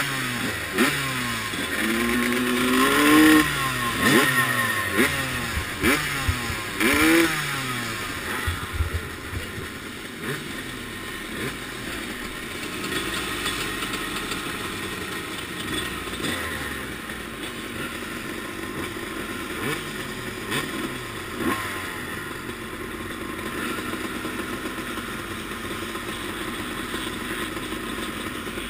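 Several motocross bikes running at the start gate, the nearest a 1989 Suzuki RM250 two-stroke. Their engines blip and rev up and down repeatedly for the first eight seconds or so, then settle into a steadier mix of idling and revving.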